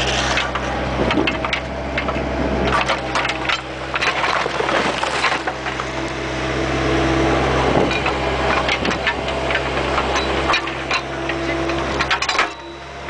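Bobcat 430 mini excavator running steadily, heard up close from its bucket, with frequent clattering, scraping and cracking as the bucket works through dirt and debris. The clatter drops away briefly just before the end.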